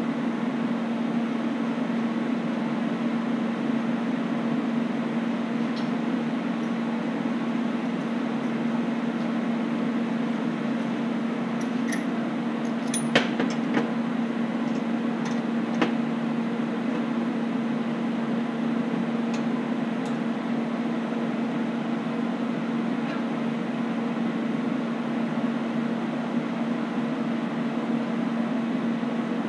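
Steady mechanical hum of shop equipment, with a few light metallic clicks and taps about halfway through as steel bracket plates are fitted together and a clamp is set on them.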